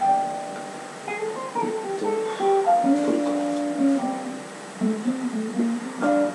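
Background music: a plucked string instrument, guitar-like, playing a melody of single notes with a few chords.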